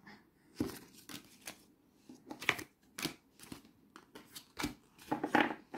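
A deck of oracle cards being shuffled by hand: irregular short flicks and slaps of card against card, with a busier cluster near the end.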